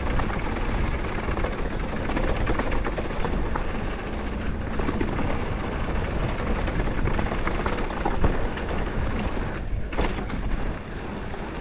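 YT Capra Core 2 mountain bike descending a rough dirt trail, heard from a helmet or bike-mounted action camera: wind rumbling on the microphone, tyres rolling over dirt and rocks, and the bike rattling and knocking over bumps.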